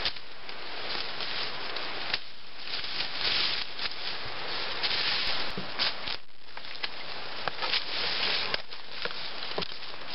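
Brush and leaves rustling as small saplings are hooked and cut off at the base with a Woodsman's Pal bush hook, with a few sharp snaps of stems breaking.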